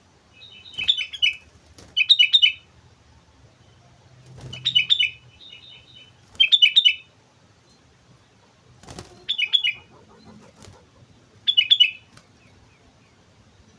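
Sooty-headed bulbul (kutilang) singing in short, quick bubbly phrases, about seven bursts of half a second each with pauses of a second or two between them. A single sharp knock sounds partway through.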